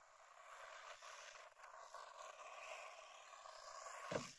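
Small 1:16 electric RC buggy driving over gravel toward the listener, its motor and tyre noise growing steadily louder. Near the end a sharp thump as the car hits a board lying on the track.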